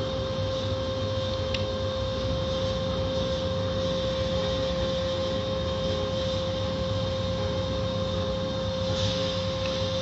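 Automatic car wash heard from inside the car: water spray and cloth wash strips sweeping over the windshield, over a steady machinery hum with one constant whining tone.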